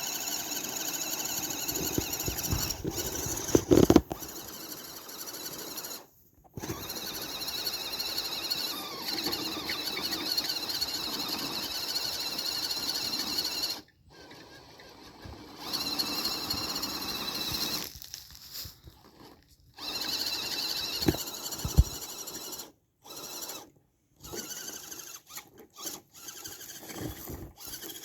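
Whine of a Redcat Everest 10 RC crawler's electric motor and gears, starting and stopping in stretches of a few seconds as the throttle is worked. There are a few sharp knocks, the loudest about four seconds in.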